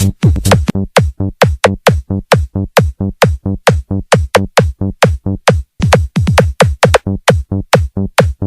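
Electronic dance music from a DJ mix, driven by a fast, steady beat of heavy drum-machine kicks that drop in pitch, about four to five a second.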